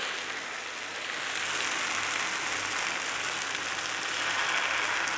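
Thin wheat-flour dosa batter (godhuma dosai) sizzling steadily as it is poured onto a hot griddle. The very watery batter bubbles into a lacy, holey layer as it hits the hot surface.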